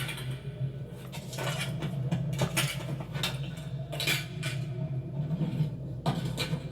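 A series of short clicks and clinks at uneven intervals over a steady low hum.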